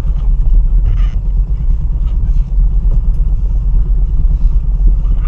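Loud, steady low rumble of wind buffeting the microphone, with no engine note in it.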